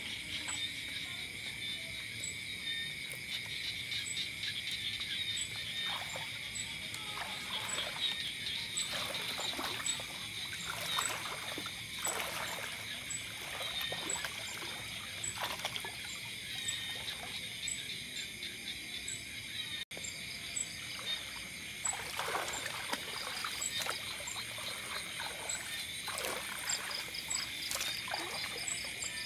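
Steady, high-pitched night chorus of insects and frogs, with a faint tick about once a second above it. Scattered small splashes and trickles of water come as bamboo fishing rods and lines are worked in a shallow pond.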